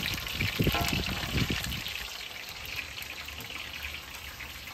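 Chicken pieces sizzling in hot frying oil, a steady crackling hiss, as they are lifted out after the first fry of a double fry. A few low bumps in the first two seconds.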